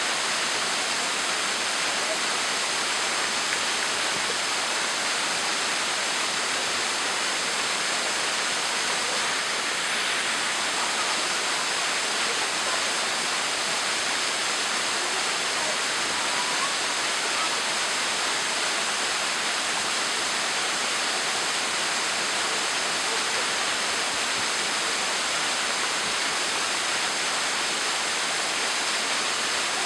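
Thin waterfall pouring over a rock ledge into a rocky pool: a steady, even rush of falling and splashing water.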